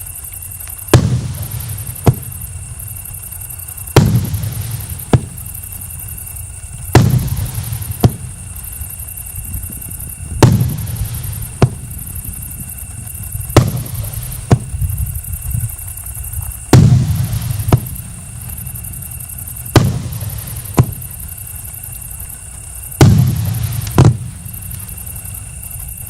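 A 24-shot, 2-inch (50 mm) firework battery firing shell after shell: sharp booms about one to two seconds apart, several trailing off into a crackling rumble.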